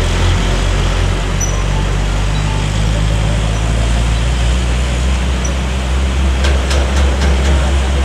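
Diesel engine of a green dump truck running steadily as it drives away on a wet road, a deep drone over the hiss of traffic and wet tyres. A few short sharp clicks come about six and a half to seven and a half seconds in.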